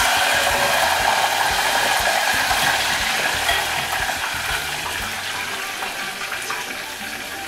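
Slices of roasted pork belly sizzling in very hot fat, a loud, even hiss that slowly dies down, as the fat crisps the rind into crackling (pururuca).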